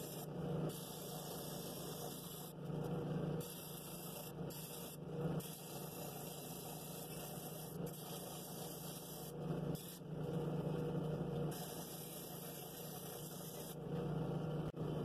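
Drill press running steadily with a flex-pad sanding disc in its chuck, and a cherry wood bowl pressed against the spinning pad now and then. Each press brings a rougher, louder sanding rasp over the motor hum.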